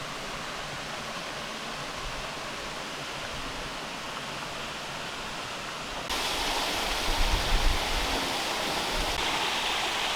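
Waterfall rushing steadily. About six seconds in, the rush abruptly becomes louder and brighter, with some low rumbling just after.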